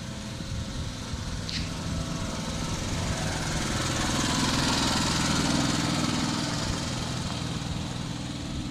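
Small engine of a miniature-railway locomotive running steadily as the loco comes up, passes close by and draws away; it grows louder to a peak about four to six seconds in, then fades.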